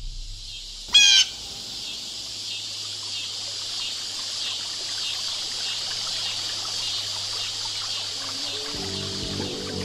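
A short loud chirp with a falling pitch about a second in, then a steady high hiss of trickling water. Music comes in near the end.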